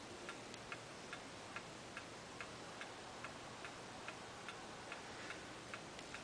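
Open brass spring-driven pendulum clock movement ticking, light clicks evenly spaced at about two and a half a second: the movement is in beat and running well.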